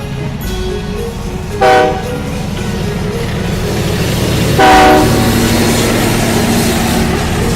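Train running steadily, sounding two short horn blasts: one about two seconds in and a louder one near five seconds.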